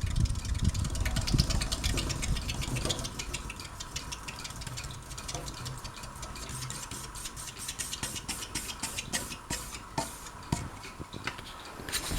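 Hunter Coastal Breeze Plus ceiling fan running, its low rumble fading over the first few seconds to a quieter steady hum, with light rapid ticking throughout.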